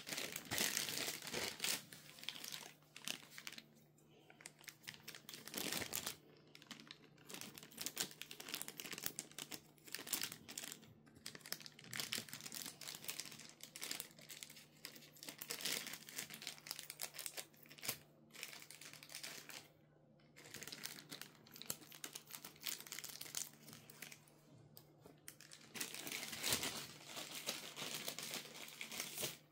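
Packaging being unwrapped: plastic and paper crinkling and rustling in irregular bursts, with some tearing.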